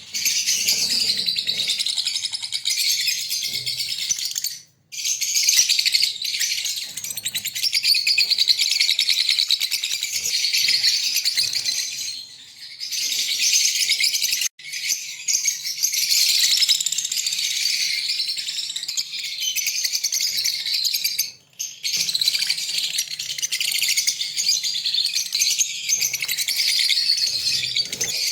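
A breeding pair of green Fischer's lovebirds chattering and chirping in a rapid, high, continuous twitter, with a few brief breaks.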